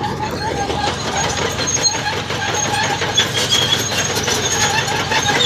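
Heavy earthmoving machinery running, with repeated short metallic squeals and clanks over a steady engine noise.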